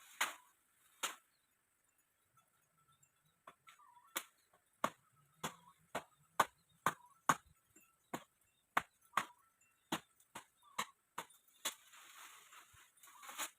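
A series of sharp knocks from a striking tool. Two come near the start, then an irregular run of about two blows a second from about four seconds in until near the end, with some blows louder than others.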